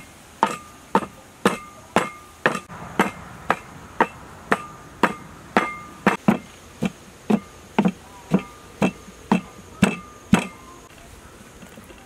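A wooden pestle pounding in a large wooden mortar, about two strokes a second, each knock ringing briefly. The pounding stops near the end.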